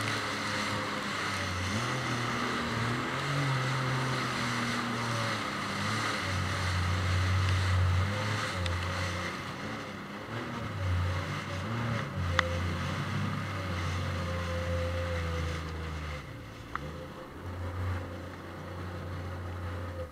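Jet ski engine running under way, its pitch rising and falling with the throttle, over a steady hiss of water spray. It gets quieter over the last few seconds.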